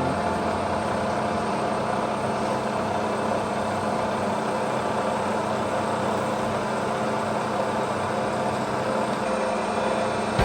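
A steady machine running noise with no breaks.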